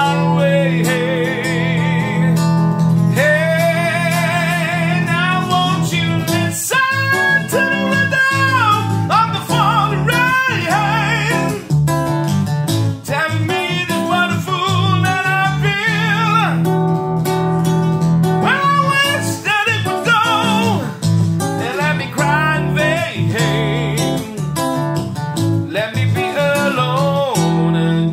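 Acoustic guitar playing an instrumental break in a slow song: chords underneath and a melody above that wavers with vibrato.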